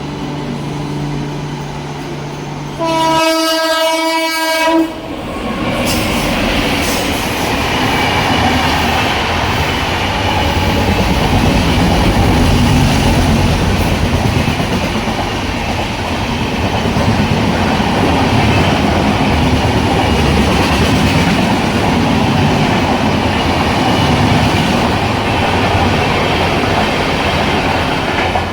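A WAP7 electric locomotive sounds its horn in one blast of about two seconds. The express train then passes at speed with a loud, continuous rumble and clatter of wheels on the rails.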